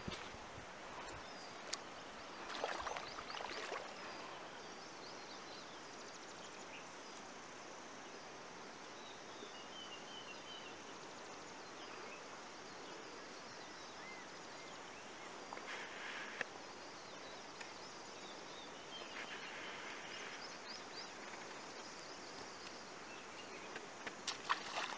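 Steady rush of a wide river flowing past, with a few short knocks and scuffs of bare feet landing on rock near the start and end. Faint, scattered high chirps, likely birds, sit over the water noise.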